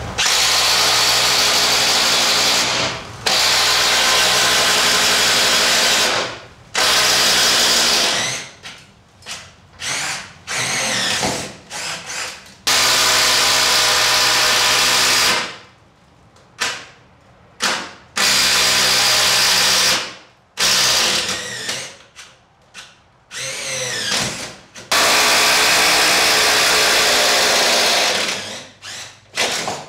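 Power drill boring holes for electrical wiring runs: the motor runs at full speed in several long pulls of a few seconds each, broken by stretches of short trigger bursts and brief stops.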